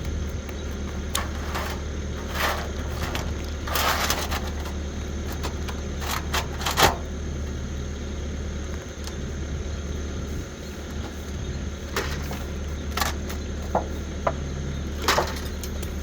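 Scattered sharp knocks and scrapes from work on an asphalt shingle roof around a box vent, over a steady low rumble. The loudest knock comes near the middle.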